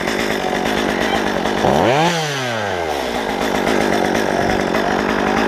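Two-stroke gas chainsaw running loud, engine speed falling away, then revved up sharply about two seconds in and let back down before it settles into a steady run.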